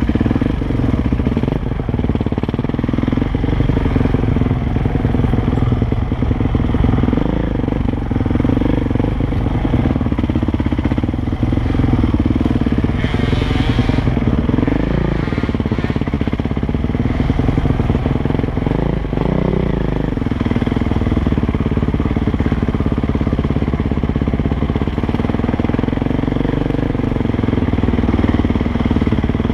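KTM 450 SX dirt bike's single-cylinder four-stroke engine running steadily, heard from the rider's helmet camera, its pitch dipping and rising with the throttle now and then. A brief rush of noise about thirteen seconds in.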